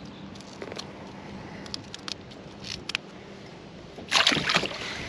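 A few light clicks and taps of handling, then about four seconds in a loud, short splash of water as a walleye is lowered into the lake over the side of a kayak.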